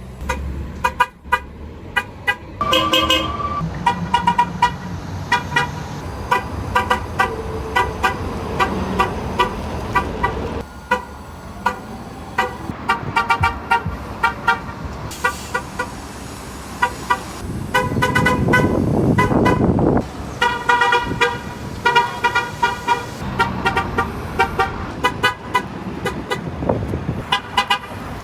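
MTA transit bus horns sounding in quick runs of short toots, over and over, with engine and street noise underneath.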